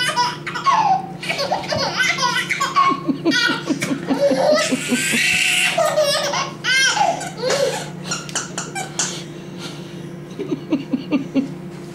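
A baby laughing in repeated high-pitched bursts.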